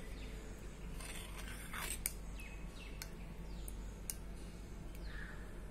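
Faint clicks of a steel spoon against a bowl of thick rabdi as it is scooped, with a few faint falling bird chirps over a low steady hum.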